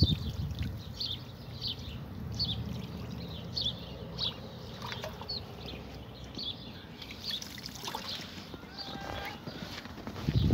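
Water poured from a watering can into a chicken waterer, then crunching footsteps in snow, about two a second. Throughout, wind buffets the microphone with a low rumble.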